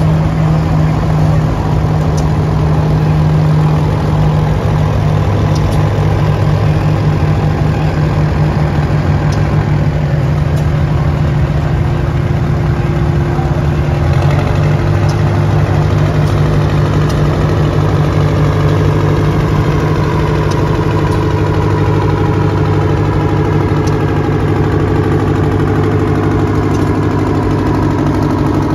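Several vintage Oliver farm tractors driving slowly past one after another, their engines running steadily at low speed.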